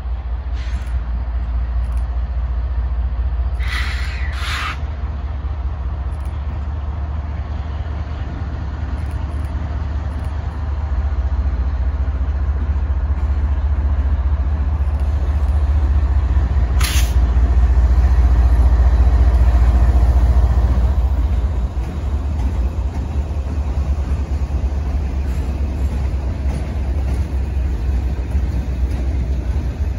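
CN freight train rolling past, led by a GE ET44AC diesel-electric locomotive. The locomotives' engine rumble builds as they approach, peaks, and drops off about two-thirds of the way through. The steady rumble of freight cars rolling on the rails follows, with a few sharp clicks.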